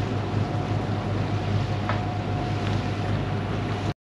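A pleasure boat's engine running steadily: a low drone with a faint steady whine, over wind and water noise. The sound cuts out for a moment near the end.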